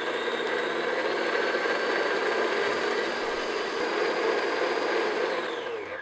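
Electric stand mixer running steadily, its flat beater beating cake batter of creamed butter, sugar and eggs in a stainless steel bowl. The motor whine holds steady, then winds down near the end as the mixer is switched off.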